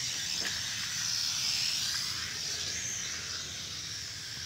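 Small toy quadcopter's propellers running with a steady high-pitched buzz, the pitch wavering a little as the motor speed changes.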